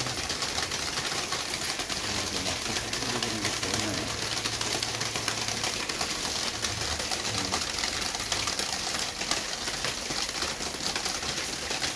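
Heavy rain with water dripping and trickling as it leaks in through a gap in the wall beside the veranda window: a steady hiss full of fine drip ticks.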